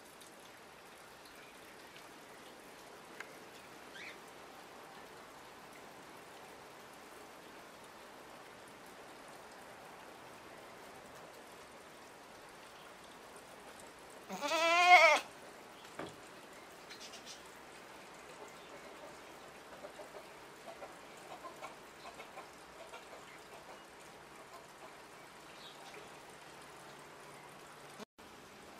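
A goat bleats once, a loud wavering call lasting about a second, about halfway through. Under it runs a steady hiss of rain, with a few small ticks and rustles.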